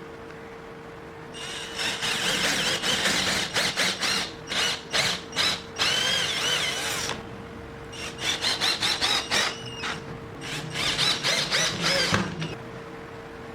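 Electric drill run in repeated short bursts as a bit cuts or grinds against metal, with a high, wavering squeal. It comes in two spells of about five seconds each, with a pause of a second between them.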